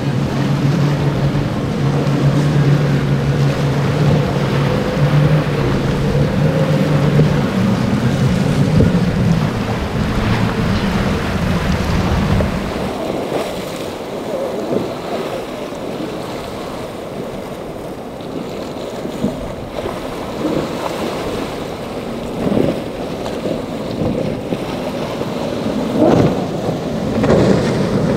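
Quad Mercury Racing 400 outboard engines on a Nor-Tech center console running at speed: a steady low engine drone for about the first twelve seconds. The engine then gives way to wind on the microphone and rushing water, with a few sharp thumps near the end.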